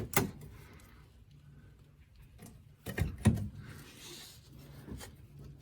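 A few sharp clicks and knocks, one shortly after the start, two close together about three seconds in and a lighter one near the end, over a faint low hum.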